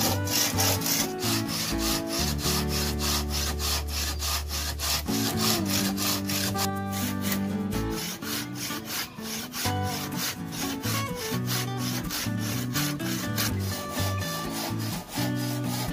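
Hand saw cutting through a lightweight aerated concrete (hebel) block wall in quick back-and-forth strokes, over background music.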